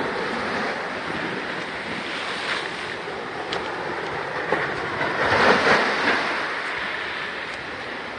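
Ocean surf: small waves breaking and washing up a sandy beach in a steady hiss of foam, with a louder surge of wash about five seconds in.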